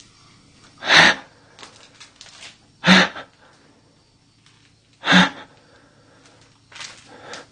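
A person breathing out hard close to the microphone: four short, sharp puffs of breath about two seconds apart, the last one fainter.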